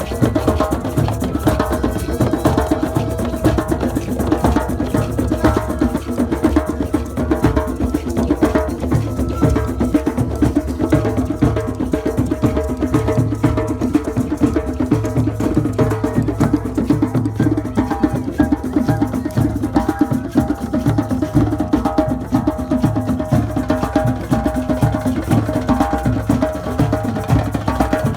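Live drumming with a fast, steady beat of many strokes, with sustained tones held over it.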